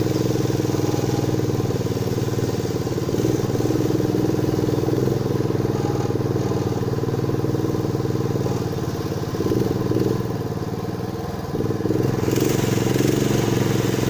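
Long-tail boat engine running steadily under way, easing off slightly about nine seconds in and picking back up about three seconds later.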